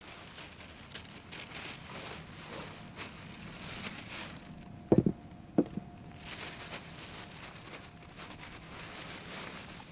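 Rustling and shuffling handling noise, with two loud short knocks about half a second apart a little past halfway.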